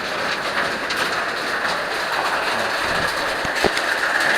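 Waterfall's steady rush of falling water, with a couple of light knocks about three and a half seconds in.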